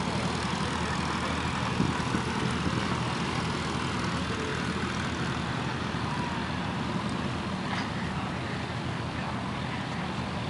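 A steady low engine drone with outdoor background noise.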